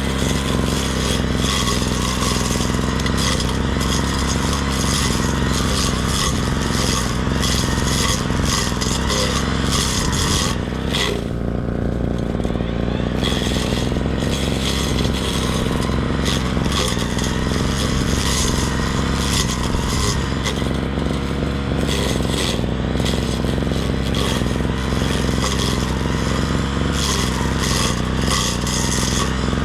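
Brush cutter running steadily, its engine hum under a dense scraping and clattering as the cutting head works through grass. The cutting noise eases briefly about eleven seconds in.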